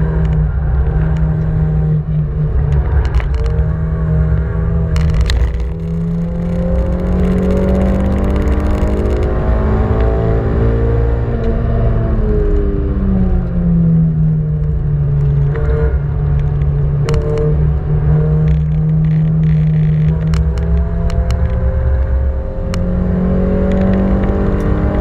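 1989 Honda Civic ED7's four-cylinder engine heard from inside the cabin, running hard at high revs on track. Its note dips briefly at gear changes, and about halfway through falls in pitch as the car slows, then climbs again under acceleration; a few sharp clicks sound over it.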